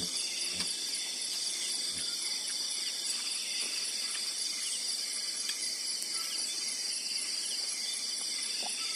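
Steady chorus of insects, with several high-pitched trills running continuously over one another, and a few faint knocks in the first two seconds.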